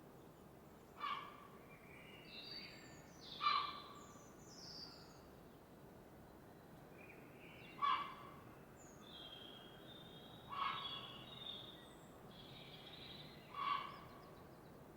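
Birds calling at dawn: a short, loud call repeats five times, a few seconds apart, with fainter chirps and whistles from other birds between, over a steady soft background hiss.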